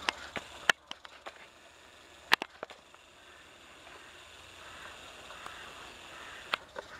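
A small live-steam garden-railway locomotive with oscillating cylinders runs faintly as it moves away along the track. A few sharp, irregular clicks sound over it, the loudest about two and a half seconds in.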